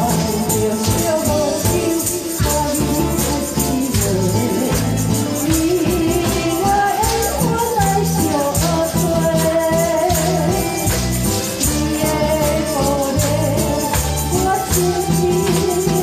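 A woman singing into a handheld microphone over a backing track with a steady beat and a tambourine-like jingle, played through a PA speaker.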